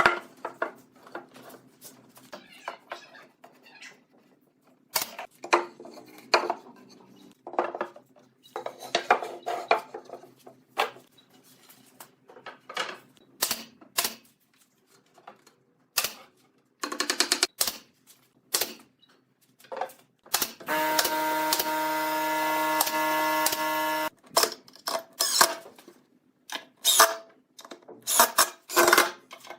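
Irregular workshop clicks, taps and knocks from wood and tools being handled, with a power tool running steadily for about three seconds a little after the middle.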